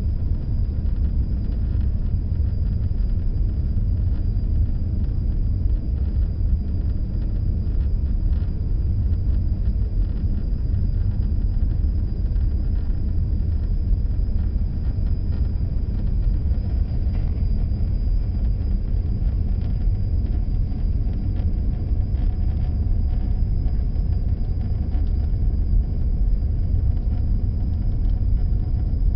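Steady low rumble of a car driving along the road, with no breaks or changes.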